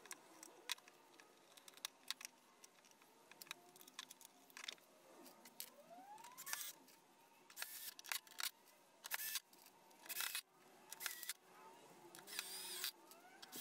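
Faint clicks and taps from handling tools, with a few short bursts of a cordless drill, its motor whine rising as it spins up.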